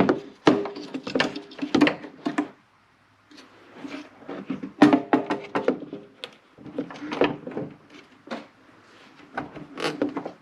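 A plastic headlight assembly is knocked and clattered about as it is worked into its mounting holes. It makes an irregular run of sharp clicks and knocks with a hollow ring, with a brief break about three seconds in.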